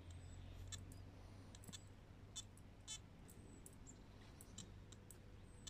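Near silence with a few faint, scattered clicks. The Simplex+ metal detector gives no signal over the empty test hole.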